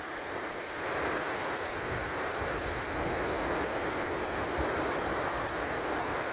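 Waves washing onto the beach in a steady rush, with wind rumbling on the microphone.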